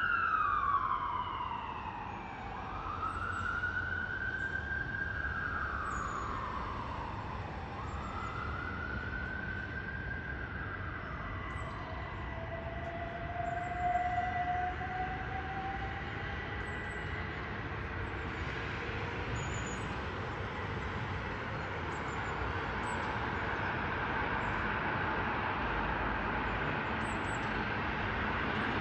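Emergency vehicle siren wailing in a slow rise and fall, fading out after about twelve seconds, with steady street traffic noise continuing after it.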